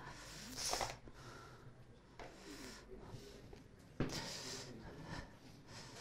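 Whiteboard eraser rubbing across the board in short strokes, starting about four seconds in. Before that, a short noisy breath close to the microphone about half a second in.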